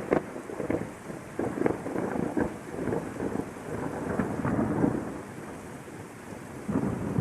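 Thunderstorm: rain falling steadily under rolling thunder that crackles and rumbles in waves, swelling louder near the end.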